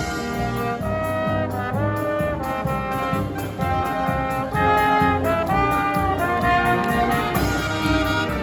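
Live brass marching band playing, trumpets and trombones carrying a melody of held notes that slide between pitches.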